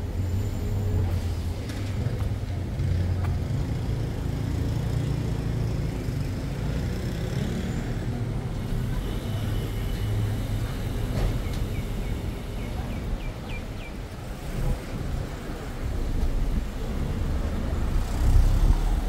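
City street traffic: a steady low rumble of vehicle engines, growing louder near the end, with a few short faint chirps about thirteen seconds in.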